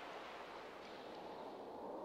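Faint, steady rushing hiss with no distinct sounds in it.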